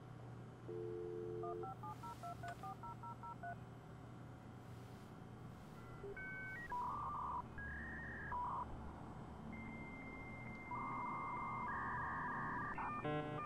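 Dial-up modem connecting over a phone line: a dial tone about a second in, then a quick run of touch-tone dialing digits, followed by a series of answering beeps, a long steady high tone, and a burst of stacked handshake tones near the end.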